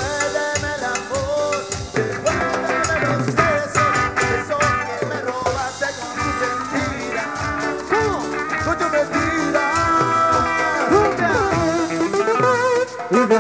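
Live band playing an instrumental passage of a cumbia song: a drum kit keeping a steady dance beat under a melodic lead line with pitch bends.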